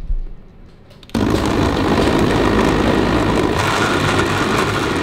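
Countertop blender motor starting about a second in and running steadily at high speed, blending a fruit smoothie of banana, berries, pineapple and almond milk. It comes after a brief low thud.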